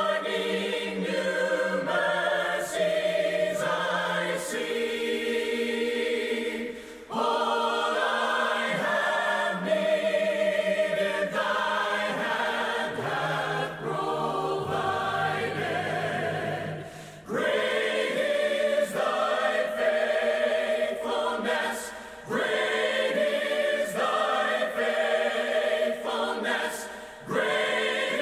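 A choir singing sacred music in long held phrases, with short breaks between phrases about every five to ten seconds.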